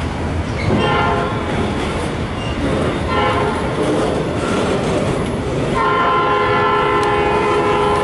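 Canadian National freight train's diesel locomotive horn sounding a chord three times, two short blasts and then a long one starting about six seconds in, over the steady rumble of the passing train.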